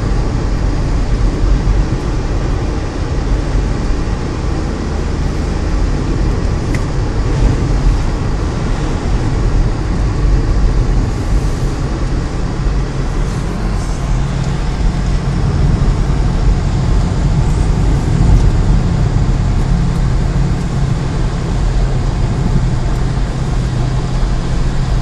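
Car driving along a road, heard from inside the cabin: a steady low drone of engine and tyre noise, with the engine hum growing stronger about halfway through.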